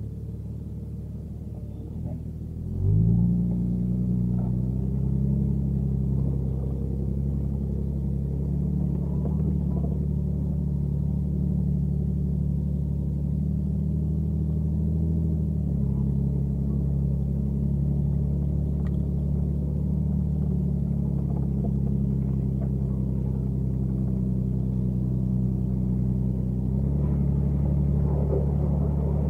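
1990 Jeep Cherokee XJ's engine running. Its note rises and gets louder about three seconds in, then holds steady, with small shifts in pitch later on.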